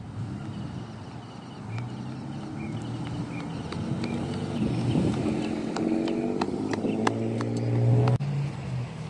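An engine revving up, its pitch rising over a few seconds, then cutting off abruptly about eight seconds in.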